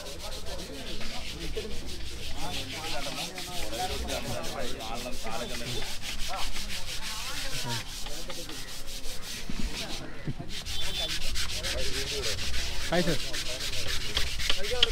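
Wooden boat-race oars being hand-sanded and polished, with many fast, overlapping rubbing strokes that pause briefly about two-thirds of the way through.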